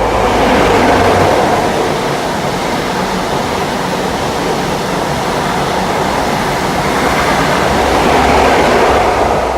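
A train passing close by with a loud, continuous rushing noise that swells about a second in and again near the end.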